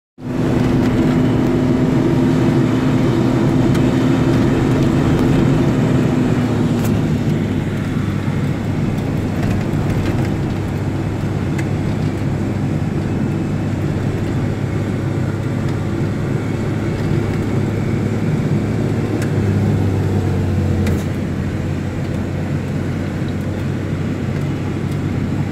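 A road vehicle's engine running steadily under way, with tyre and road noise; the engine's note drops about seven seconds in.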